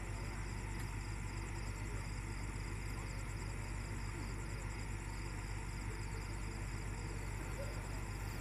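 Heavy diesel engine of railway recovery machinery idling, a steady low hum with no change in pace.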